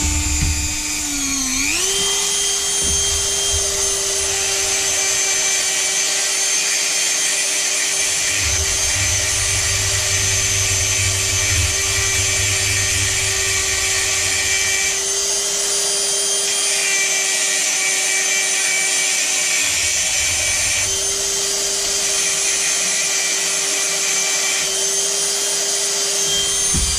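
Dremel rotary tool running at high speed, grinding away the crimped ends of the throttle-plate screws on a Weber 32 DMTR carburettor's throttle shaft. A steady high whine whose pitch steps up about a second and a half in and then holds, with the grinding load coming and going.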